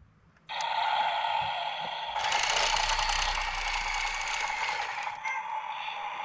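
Battery-powered CAT toy excavator's electric motor and plastic gears running, a steady whine with a ratchety gear rattle, starting about half a second in and growing louder from about two to five seconds in.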